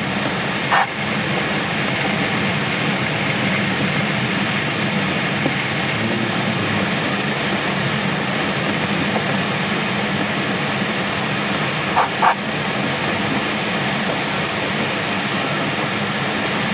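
Steady rush of air over the canopy inside the cockpit of a Schempp-Hirth Duo Discus glider in flight. A short high beep sounds about a second in, and two more come close together near twelve seconds.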